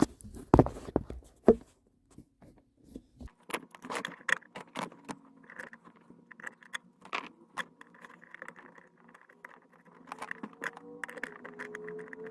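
Metallic clicks, knocks and light rattling as an aluminium pedal cover and its screws are handled and fitted to a car's plastic dead pedal, with two heavy thumps in the first two seconds. Music fades in near the end.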